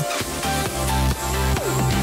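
Electronic background music with a steady beat and a heavy bass line.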